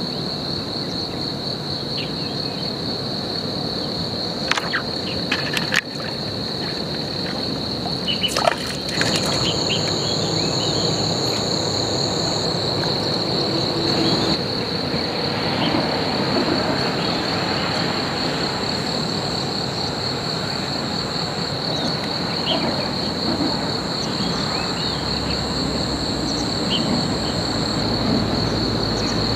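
Insects calling steadily in one continuous high-pitched drone, with a second, higher insect note joining about nine seconds in. A few sharp clicks come between about four and nine seconds in.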